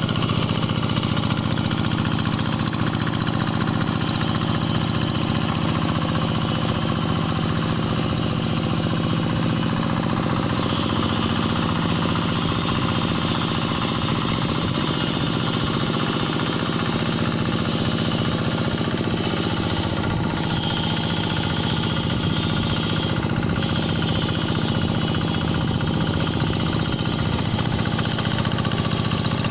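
Two-wheel hand tractor's single-cylinder diesel engine running steadily under load as it drags through flooded paddy mud to level it.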